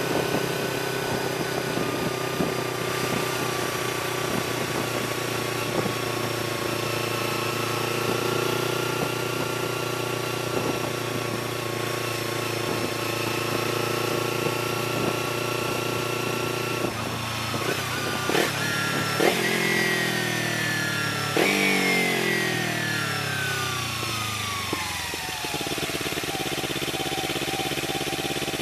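Kawasaki Ninja 300's parallel-twin engine running at a steady cruise, heard close up with wind hiss. About two-thirds through, the revs jump up and fall away two or three times as the bike downshifts and slows, settling to a lower steady note near the end.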